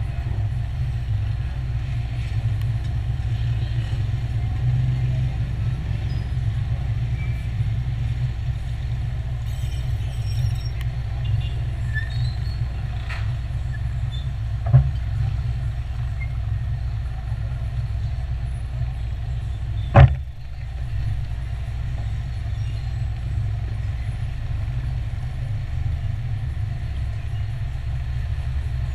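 Steady low engine rumble of a car idling at a standstill, with motor traffic around it. Two sharp knocks stand out partway through, the second the louder.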